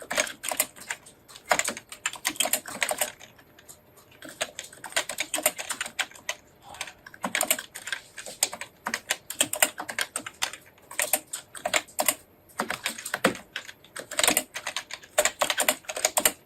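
Fast typing on a computer keyboard with the thumb-shift (NICOLA) kana layout: dense runs of key clicks, broken by a few brief pauses.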